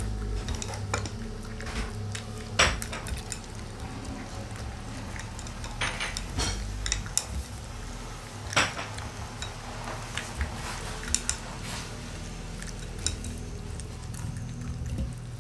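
Shiba Inu eating dog food from a stainless steel bowl: irregular clinks and clicks of teeth and food knocking against the metal, with a few sharper knocks.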